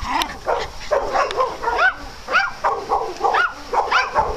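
Small dogs barking and yapping in play, short high-pitched yips repeating about twice a second.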